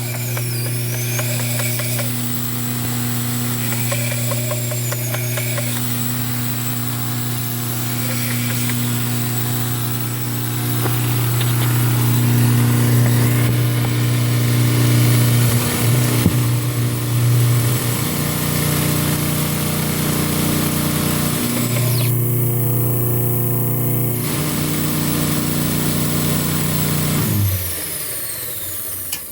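Harbor Freight 2 hp electric motor driving a 2x72 belt grinder, running with a loud, steady hum; near the end it is switched off and the hum falls away. The owner believes the motor is failing because it is not sealed and grinding dust has got into it.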